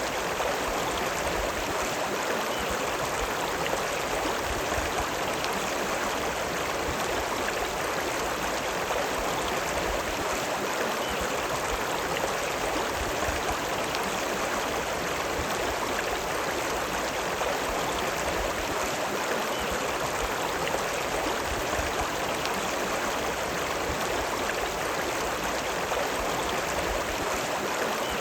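River water flowing: a steady, unbroken rush of running water.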